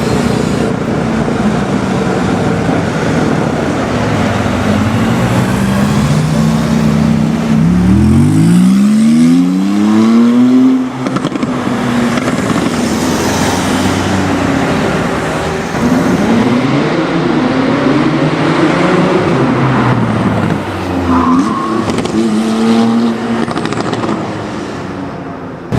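Tuned Porsche 991 Turbo S Cabriolet's twin-turbo flat-six engine running amid street traffic. It accelerates hard about eight seconds in with a steeply rising engine note, then revs up and down again several times later.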